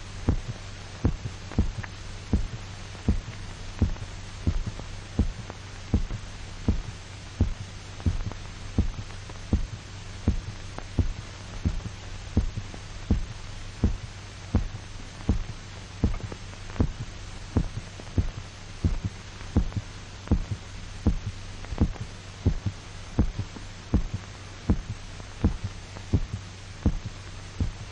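A dog's heartbeat, amplified, thumping steadily about twice a second while its blood is drained through the carotid artery, before the heart stops. A steady low hum runs underneath.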